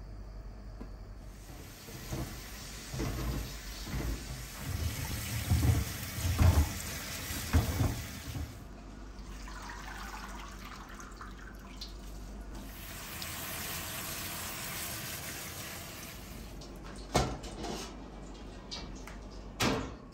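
Kitchen tap running into a steel sink, with splashing and sloshing as food is rinsed in water. Two sharp knocks near the end.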